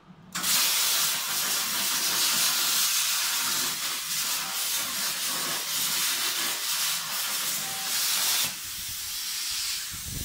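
Plasma cutting torch on a CNC plasma table cutting steel sheet: the arc strikes with a sudden loud hiss and runs steadily. About eight and a half seconds in it cuts out and the sound drops to a quieter hiss.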